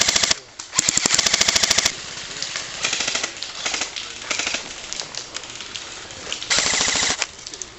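Airsoft guns firing rapid full-auto bursts, about fifteen to twenty shots a second: two loud bursts at the start, several shorter, quieter bursts from further off in the middle, and another loud burst about six and a half seconds in.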